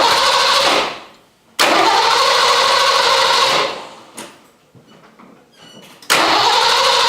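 A Fox-body Mustang V8 being cranked by its starter in three separate attempts: one that fades out early, a longer one of about two seconds, and a third that starts near the end. The engine turns over but does not catch, because of a failed fuel pump.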